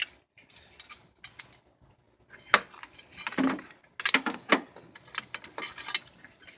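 Metal tools and battery hardware clinking and knocking during a car battery swap. Scattered sharp clicks, one loud knock about two and a half seconds in, then a quick run of clicks over the last couple of seconds.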